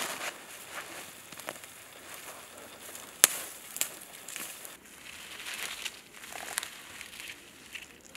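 Spruce branches being broken off by hand: twigs cracking and snapping among rustling needles and snow, with one sharp snap about three seconds in.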